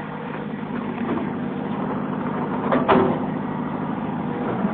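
Backhoe's diesel engine running steadily, gradually getting louder, with a sharp clank about three seconds in.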